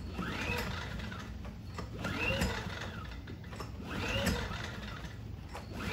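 Small generator engine on a propane conversion kit being cranked over about three times without firing, each crank rising and then falling in pitch; it is not yet getting enough propane to start.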